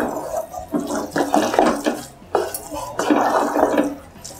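A wooden spatula stirring a thick, wet mix of mashed rice and jaggery in a metal pressure cooker: a run of wet squelching, scraping strokes, one after another.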